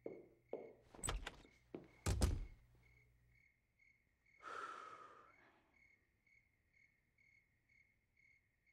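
Heavy thuds and knocks, the two loudest about one and two seconds in, then a breathy rush of noise near the middle, over steady night-time cricket chirps.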